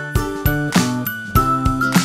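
Background music: a light instrumental with a steady beat and bright, tinkling notes.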